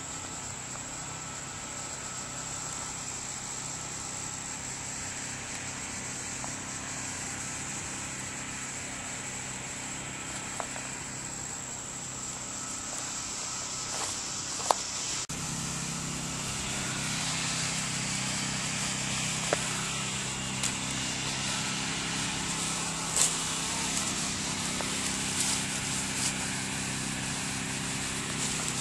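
Steady high insect drone in the woods, joined about halfway through by a low steady motor hum, with a few light clicks and rustles.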